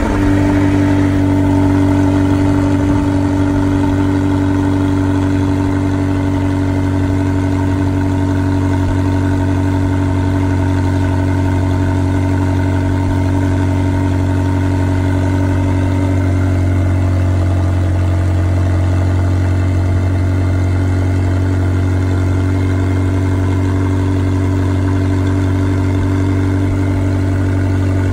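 McLaren 720S twin-turbo V8 idling steadily just after starting up, a little louder in the first few seconds before settling.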